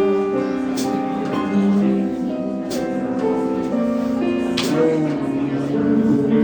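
Jazz guitar and piano playing an instrumental passage of a slow ballad, sustained chords and melody notes with no singing.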